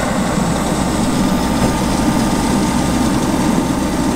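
Fuel pouring from a high-flow dock hose nozzle into a boat's deck fuel filler: a steady rushing noise over a low hum.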